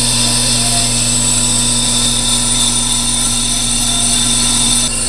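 Bench brake lathe running, spinning a Toyota Camry brake rotor on its arbor while the rotor is resurfaced. A steady loud hum with a high hiss over it; a high tone in it cuts out near the end.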